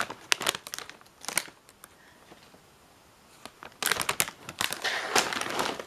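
Plastic chip bag crinkling and rustling as it is handled, in two spells of crackly noise with a quiet gap of about two seconds between them.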